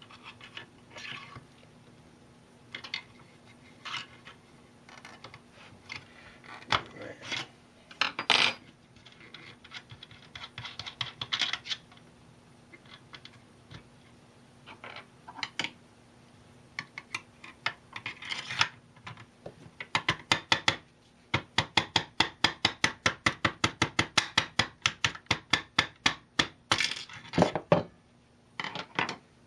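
Small metal lathe parts being handled as the center is taken out and the 3-jaw chuck fitted to the spindle: scattered metallic clinks and knocks, then, about two-thirds of the way in, a fast, even run of clicks, about five a second, for several seconds. A faint steady hum sits underneath.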